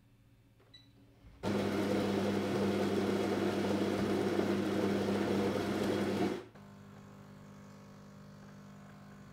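Siemens fully automatic coffee machine brewing a latte macchiato. About a second and a half in, a loud steady whirr of the bean grinder starts and runs for about five seconds, then stops abruptly. It gives way to a quieter steady pump hum as the coffee runs into the mug.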